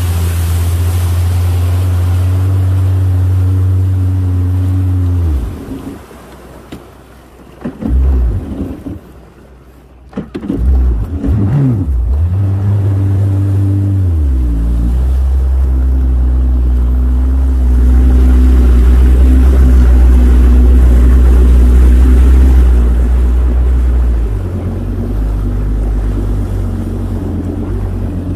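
Personal watercraft (jet ski) engine running with a steady low drone. About five seconds in it drops away for several seconds, with short revs in between, then runs strongly again. It is loudest for a few seconds before easing down near the end.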